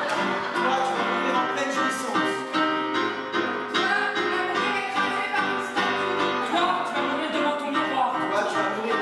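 An electric keyboard played live, with several voices singing together over it.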